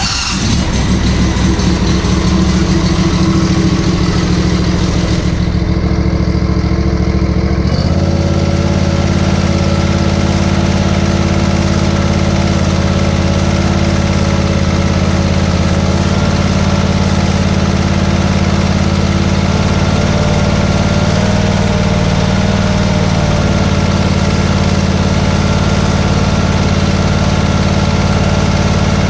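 Ferris Z2 stander mower's Briggs & Stratton Vanguard 28 hp EFI V-twin engine, just started, running steadily on fresh oil. It is being run to check for leaks around a newly fitted oil filter. Its note shifts once, about eight seconds in, then holds steady.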